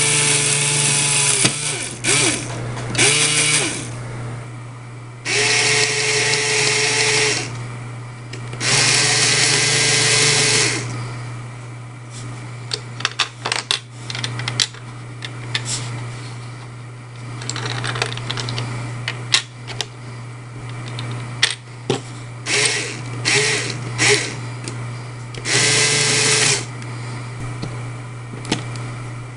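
Small LEGO electric motor running a worm-gear drive that turns a large wheel and its rammer chain, with a steady hum throughout. A louder, higher whirring comes and goes in bursts of one to two seconds, and plastic parts click and rattle in between.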